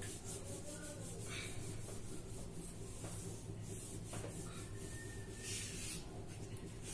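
Whiteboard eraser rubbing back and forth across a whiteboard in repeated wiping strokes as the board is wiped clean. The strokes are quiet, over a steady low hum.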